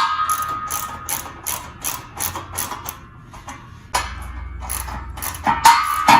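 Socket ratchet clicking in quick, even strokes, about four to five clicks a second, as the nuts fastening the fan's base to its pedestal are run down. There is a short metallic ring at the start, and a few louder clicks near the end.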